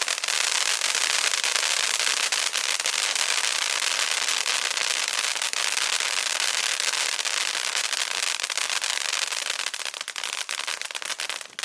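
Sky Painter 'Magic Show' fountain firework in its crackling phase: a loud, dense crackle of many small pops over a hiss, thinning out and becoming uneven near the end.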